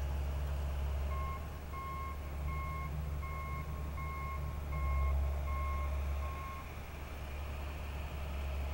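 Backup alarm on a John Deere 450 crawler dozer beeping eight times, evenly spaced at about one and a half beeps a second, over the dozer's steady low diesel engine rumble. The beeping stops a little less than two seconds before the end while the engine keeps running.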